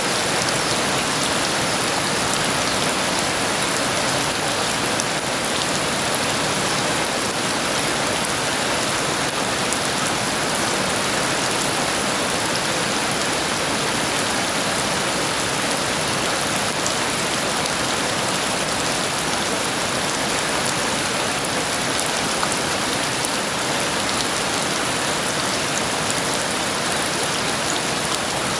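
Heavy rain falling steadily, a dense even patter of drops on surfaces with no thunderclap.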